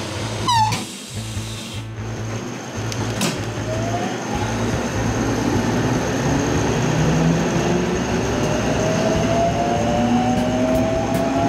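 Electric train departing: the doors close about half a second in, then the traction motors' whine rises steadily in pitch as the train accelerates away. Light regular clicks come in near the end.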